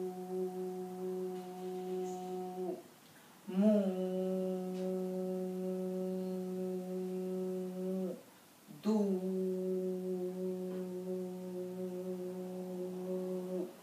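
A woman's voice holding one long vowel at a steady pitch, three times over with short breaks, each held for about four to five seconds: the drawn-out vowel of a double madda in Quranic recitation.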